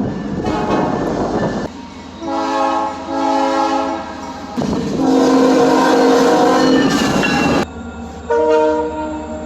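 Train horns sounding in a run of separate short clips, each blast several tones at once. Train running noise comes first, then two blasts a couple of seconds in, a longer blast in the middle and a short blast near the end.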